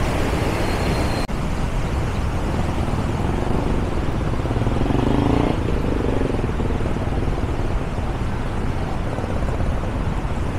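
Steady rushing of a flooded river, heard from a road bridge with cars going by. One vehicle passing swells louder about five seconds in.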